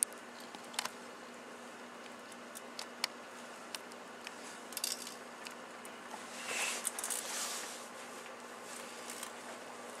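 Two microwave ovens running with strings of Christmas lights inside: a steady low hum broken by scattered sharp snaps and crackles of the wires and bulbs arcing, with a longer burst of crackling about six and a half seconds in.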